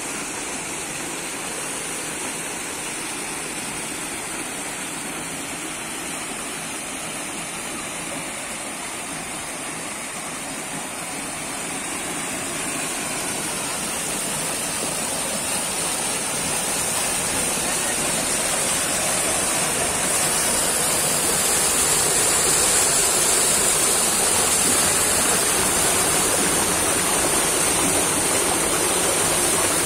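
Creek water rushing and splashing over rock ledges in a small cascade, a steady rush that grows louder from about halfway through as the white water comes close.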